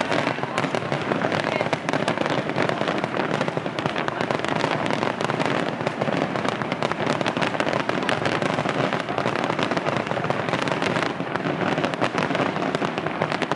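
Fireworks display going off continuously: a dense, unbroken stream of popping and crackling bursts with no pause.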